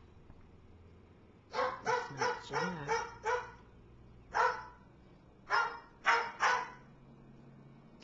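A dog barking: a quick run of six sharp barks, then a single bark, then three more.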